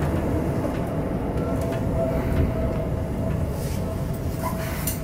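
Yellow Seibu Shinjuku Line electric train running, heard from behind the cab's front window: a steady low rumble of wheels and running gear with a faint steady hum.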